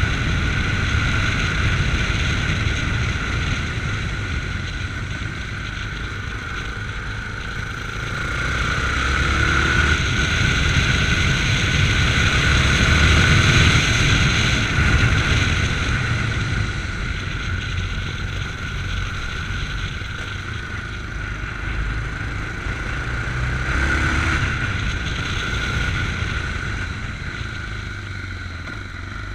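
Yamaha MT-03 motorcycle engine heard from the rider's chest while riding. It pulls louder about eight seconds in and again near the end as the throttle opens, then eases off between.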